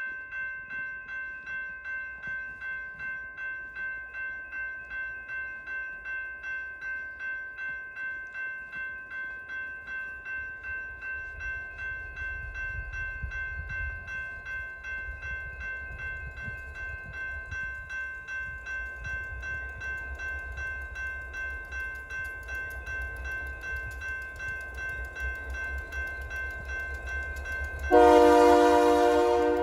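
Grade-crossing warning bell ringing steadily at about two strokes a second, while the EMD 16-cylinder two-stroke diesel of a Union Pacific GP60 locomotive approaches, its running growing louder from about halfway in. Near the end the locomotive's air horn sounds one loud blast, the loudest sound here.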